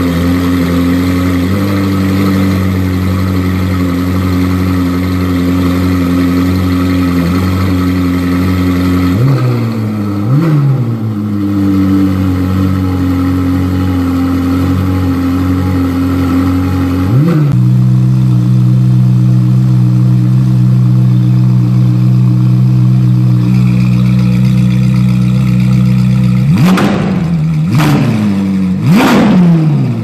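Ferrari 458 Italia's V8 through an Fi valved catback exhaust with catless downpipe, idling steadily with a couple of quick throttle blips about ten seconds in and another around seventeen seconds in, after which the idle is louder. Near the end comes a series of sharp, rapid revs, each rising and falling quickly.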